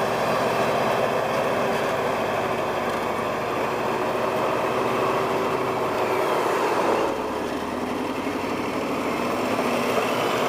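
Heavy construction machine's diesel engine running steadily. The sound changes abruptly about seven seconds in.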